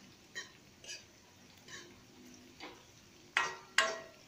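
A metal spatula knocking against a metal kadai while the frying chillies, cumin and onion are stirred. There are about six sharp taps, the last two loudest, each with a short metallic ring.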